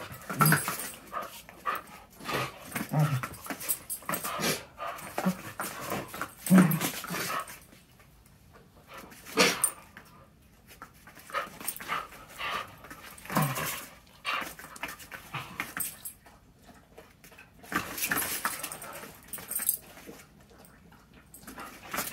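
Two dogs play-fighting, giving short bursts of growling and panting several times, with quieter stretches between.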